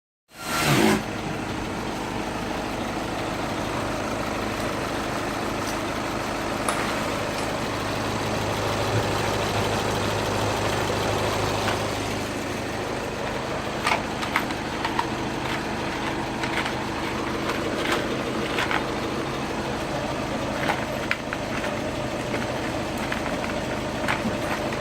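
Volkswagen Tiguan engine idling steadily, starting with a brief louder burst and then holding an even hum, with a few sharp clicks in the second half.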